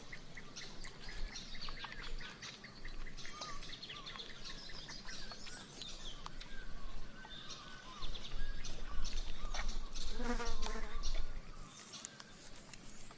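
Wild ambience of birds chirping and calling over insects buzzing, with a low rumble from about eight seconds in and a lower call a couple of seconds later.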